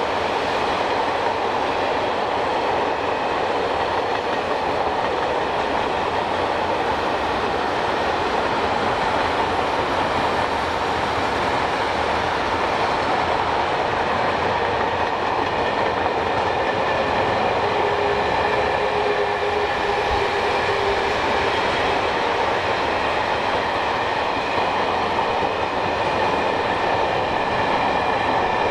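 Freight train of empty timber stake wagons rolling past: a steady rolling noise of steel wheels on rail, with faint thin high-pitched tones from the wheels and a brief lower whine about two-thirds of the way through.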